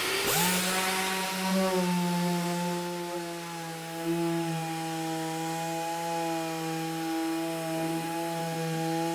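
Random orbital sander starting up about a quarter second in and then running steadily, sanding the hard vinyl ester tool-coat gelcoat of a composite panel with a P400 disc, the first grade of the sanding sequence.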